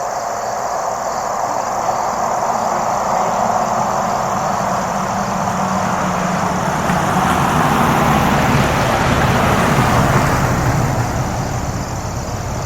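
A road vehicle passing by: its noise swells slowly to a peak about ten seconds in, then fades. A steady chorus of crickets runs beneath it.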